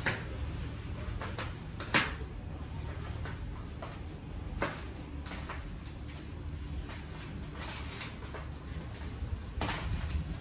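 Knocks and bumps of a 360 photo booth's heavy round metal base being handled and pulled out of its padded carrying case, the loudest knock about two seconds in and a cluster near the end.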